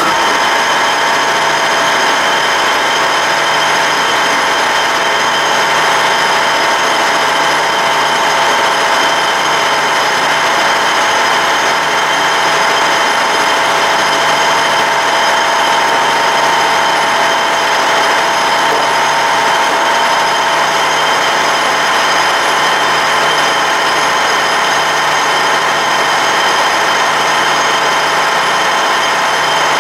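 Kingston HR2000 heavy-duty gap-bed engine lathe running under power with its spindle turning and nothing being cut: a loud, steady whine from the geared headstock, several held tones over a low hum.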